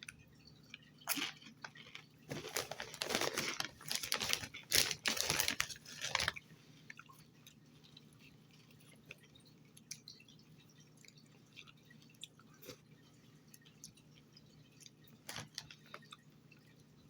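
A person biting and crunching a corn tortilla chip dipped in salsa. Loud crunches run for about five seconds from about a second in, then give way to quieter, occasional chewing clicks.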